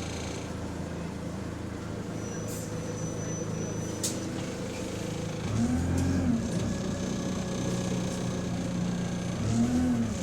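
Bus diesel engine running, heard from inside the bus; about halfway through it gets louder and its pitch rises and falls, and again near the end, as it pulls through the gears. The bus is said to be in limp mode with no kickdown and to have a small exhaust leak.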